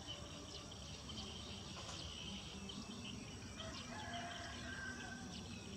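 Outdoor ambience: a steady high-pitched insect drone with scattered short chirps, and a drawn-out animal call starting about three and a half seconds in.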